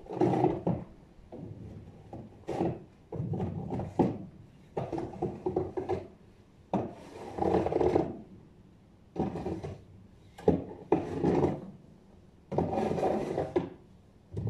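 Snow being scraped off paving stones in repeated rasping strokes, about ten of them, each lasting up to a second and a half.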